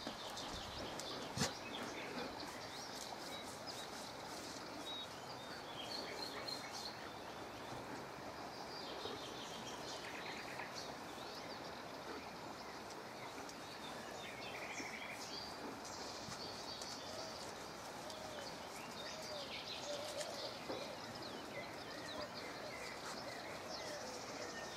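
Outdoor background with birds chirping on and off over a steady hiss, and a single sharp click about a second and a half in.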